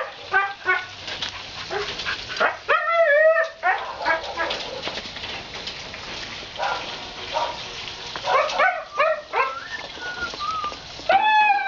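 Two young German Shepherds yipping and whining as they play-fight, in short high-pitched calls that cluster about three seconds in and again after about eight seconds.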